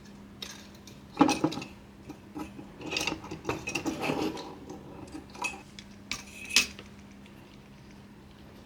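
Small metal computer parts clinking and clattering as they are handled and fitted, with sharp knocks about a second in and again near the end and a run of lighter clatter between.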